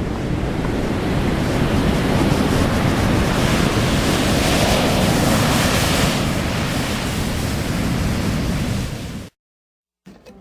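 Ocean surf breaking and washing ashore, with wind rumbling on the microphone. The wash swells louder about halfway through, then the sound cuts off abruptly into silence near the end.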